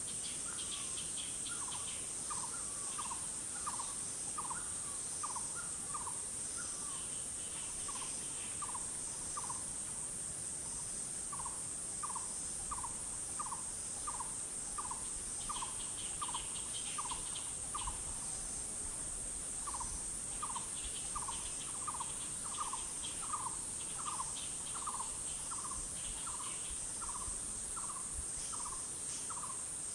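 Forest ambience: a steady high-pitched drone of insects, over which a bird repeats a short falling note about three times a second in long runs, pausing briefly now and then. Faint higher chirps come in small clusters.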